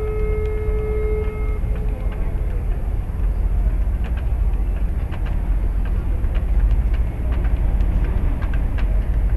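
A ship's horn sounds one steady note that cuts off about a second and a half in, signalling the ship's departure. A steady low rumble runs underneath, with faint scattered clicks later.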